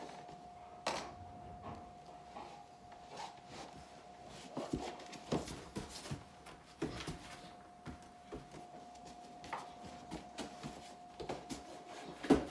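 Scattered light knocks, thumps and rustling from a Bernese mountain dog jostling a person who is pulling on socks, with the sharpest knock near the end. A faint steady tone runs underneath.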